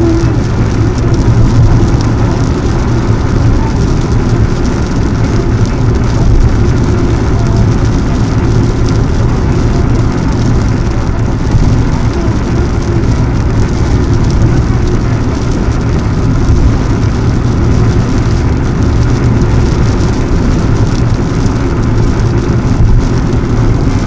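Steady car cabin noise while driving on a wet expressway in rain: tyre and road noise from the wet surface with the engine and rain on the car, heard from inside the car.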